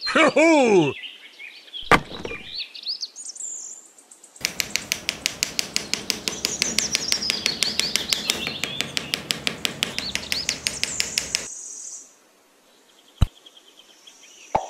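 Birds chirping, with a quick, even run of sharp taps, about five a second, for several seconds in the middle. A short wobbling cartoonish voice sounds at the very start and a single tap near the end.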